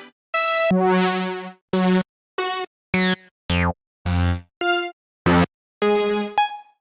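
Synthwave sample-pack one-shots played one after another: about nine short pitched synth hits, each followed by silence. One of them glides down in pitch a little past halfway.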